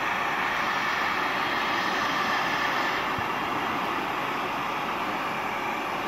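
Electric heat gun running steadily, its fan blowing a constant rush of hot air to shrink heat-shrink labels onto wires.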